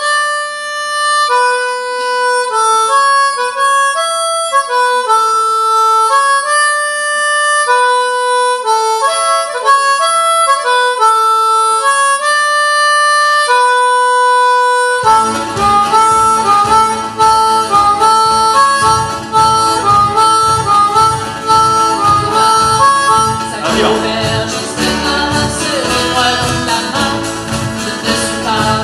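Solo harmonica plays a folk dance melody alone for about fifteen seconds, then the rest of the band comes in with drum kit and acoustic guitar beneath it, filling out the low end.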